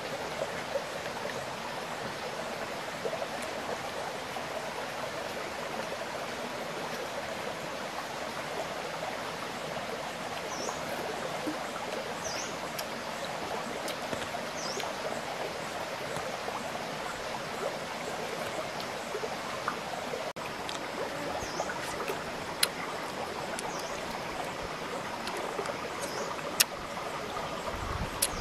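Shallow rocky creek flowing steadily, a continuous watery rush. From about ten seconds in, short high chirps come every couple of seconds, and a few sharp clicks sound in the second half.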